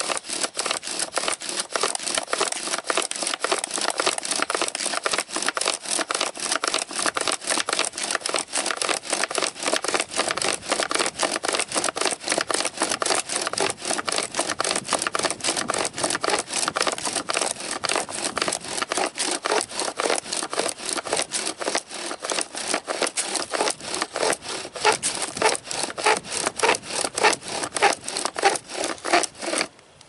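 Bow drill in use: a wooden spindle grinding in a wooden hearth board, capped by a high-carbon steel belt-buckle bearing block, with a rasping stroke at each pass of the bow, about three a second. The strokes grow a little louder in the last few seconds, then stop abruptly. This is the burn-in of a new hole in the hearth board.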